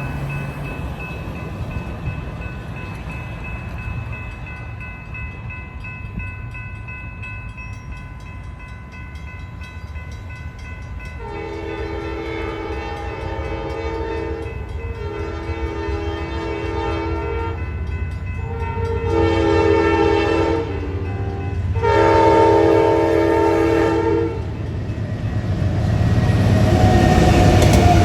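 Amtrak P42 diesel locomotive's air horn sounding the long, long, short, long grade-crossing signal, four multi-note blasts starting about eleven seconds in, over the growing rumble of the approaching train. The train passes loudly near the end.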